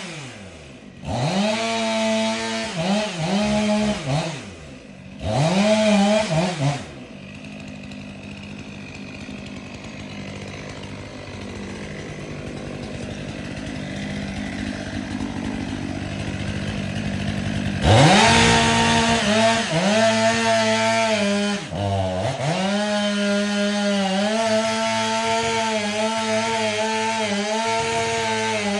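Gas chainsaw cutting into a canary palm. Its engine revs up and down in short bursts, then drops back to a lower, quieter run for a while. Later it climbs to high revs and holds there, dipping once briefly.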